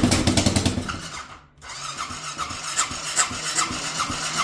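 Straight-piped Honda Rincon 650 ATV engine being cranked and firing unevenly during a hard start: fast pulses at first, cutting out about a second and a half in, then turning over again in a steadier rhythm. It fires when given throttle but won't stay running, with fuel low in the tank.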